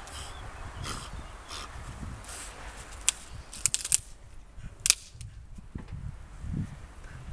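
A rough collie chewing and pawing at a dry, leafy stick: dry leaves crackle and rustle, with sharp snaps about 3 s in, a quick cluster just before 4 s and another near 5 s.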